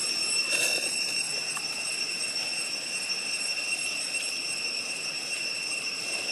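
Steady high-pitched drone of insects, with a short soft noise about half a second in.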